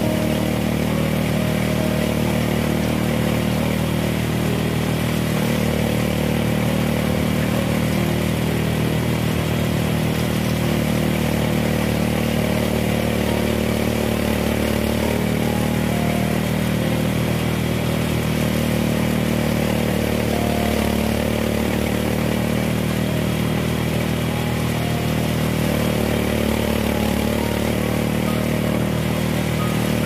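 Small engine of a rice harvester running steadily at a constant speed, without revving up or down.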